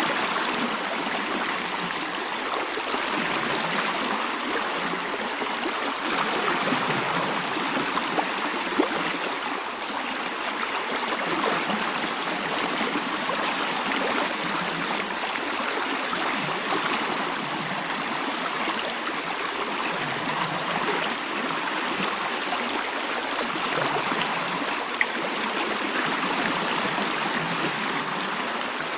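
Mountain stream flowing steadily, an even rush of water with no pauses.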